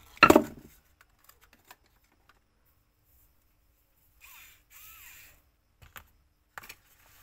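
Handling noise from an electric screwdriver and its cardboard box tray. There is a sharp knock just after the start, a few light ticks, then two short squeaky scrapes about four and five seconds in, and a couple of clicks near the end.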